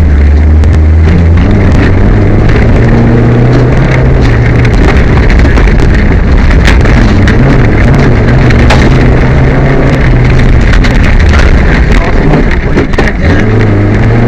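Peugeot 205 rally car's engine heard from inside the car at full speed, its pitch rising and falling as it revs and changes gear, under loud road noise and frequent short rattles and clicks. The car is misfiring.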